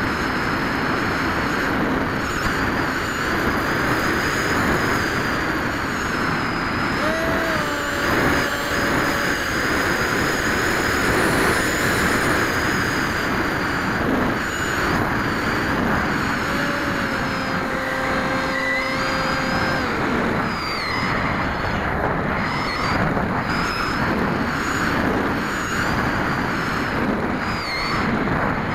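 Brushless electric inrunner motor of an RC flying wing whining in flight, heard from an onboard camera under steady wind rush. Its pitch wavers with throttle, and twice a lower steady tone holds for a couple of seconds.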